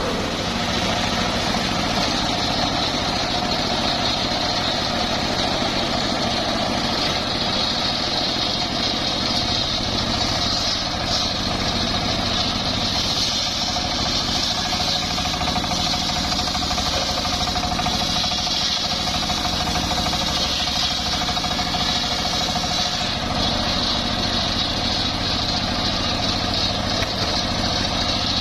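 Homemade circular sawmill running steadily: a continuous motor hum with a higher, steady ringing tone from the spinning saw blade.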